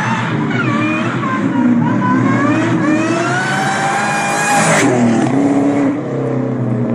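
2003–04 Ford Mustang SVT Cobra's supercharged 4.6-litre V8 revving hard while the rear tires spin and smoke in a powerslide. The engine pitch wavers, climbs steadily for a couple of seconds, drops sharply about five seconds in, then holds steady.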